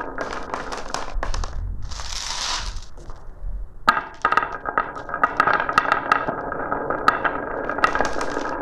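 Marbles rolling and clattering along a marble run track, with a steady rolling rumble and many quick, irregular clicks as they knock against the track and each other. There is a brief rushing sound about two seconds in, and the clicking gets denser and louder from about four seconds in.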